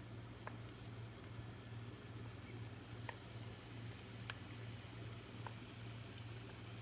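Flaked tuna being scraped with a wooden spatula from a glass bowl into a pan of simmering sauce: a steady low hum and soft hiss, with four faint clicks of spatula and glass spread through it.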